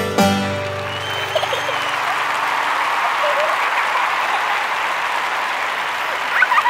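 A banjo tune stops just after the start and gives way to steady audience applause, with a few voices calling out near the end.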